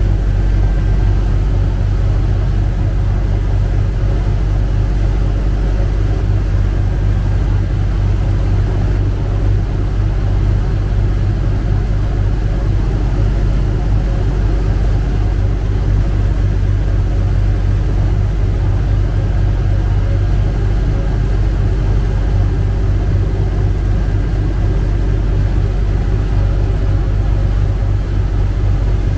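Chao Phraya Express boat's engine running steadily underway: a constant deep rumble that holds the same level and pitch throughout.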